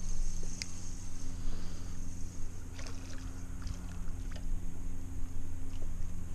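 Boat's electric trolling motor humming steadily, with scattered light clicks over it.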